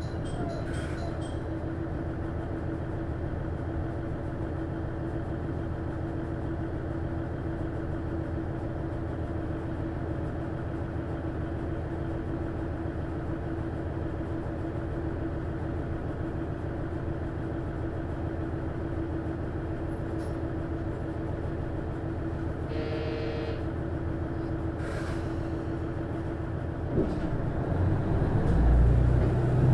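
KiHa 110 diesel railcar's DMF14HZA engine idling steadily with a constant hum while the car stands at a station, heard from inside the passenger cabin. About three seconds before the end a click cuts the hum and the engine throttles up, rising in pitch and loudness as the railcar pulls away.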